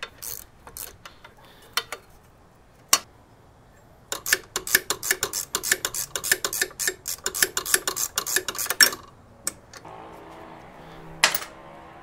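Half-inch socket ratchet clicking fast and evenly for about five seconds as it spins a nut off the belt guard's T-bolt, with a few scattered metal clinks of tools before it and a single metal clank near the end.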